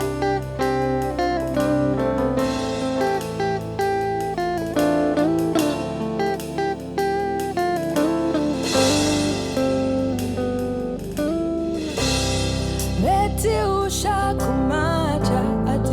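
Live afro-soul band music: plucked guitar lines over bass and drums. Near the end a voice slides up into a sung line.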